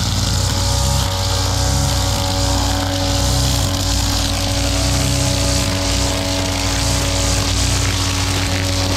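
Flexible-shaft backpack brush cutter's two-stroke engine running steadily under throttle while its nylon-line head cuts grass.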